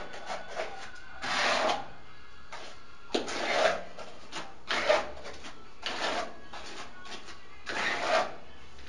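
Steel spatula scraping wet mortar onto a plastered wall above a row of bathroom tiles, in about five strokes spaced a second or two apart, with lighter scrapes between.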